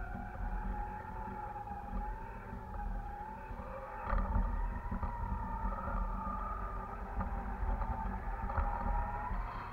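Wind rumbling on the microphone of a kite-borne camera high in the air, a little stronger after about four seconds, with a faint whistling tone that slowly wavers up and down in pitch.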